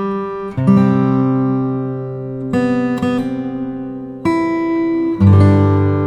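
Background music: acoustic guitar chords, a new chord struck about every one to two seconds and left to ring.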